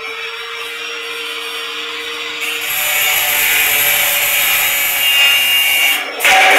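Handheld angle grinder cutting through a thin 0.75 mm light-steel channel. The motor hums steadily at first, then from about two and a half seconds in the disc biting into the steel adds a louder high hissing screech, with a short dip and a loud burst near the end.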